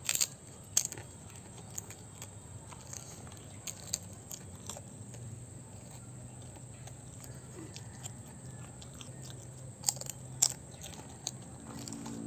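A person chewing crispy chicharon (fried pork rinds), with sharp crunches at irregular intervals, loudest just after it goes into the mouth and again about ten seconds in.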